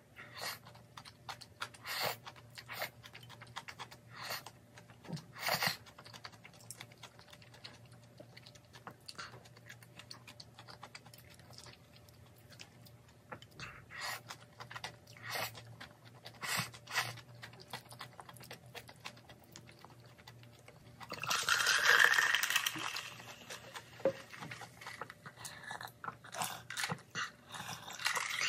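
Close-up mouth sounds of a person eating jjajangmyeon noodles: irregular wet chewing and smacking with small clicks. About three quarters of the way through, a louder, longer stretch of noisy eating sound.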